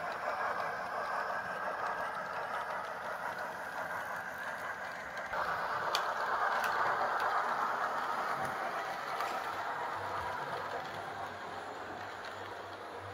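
H0-scale model trains running on the layout's track: a steady whirring of motors and wheels on the rails. It gets louder about five seconds in, with a couple of faint clicks just after.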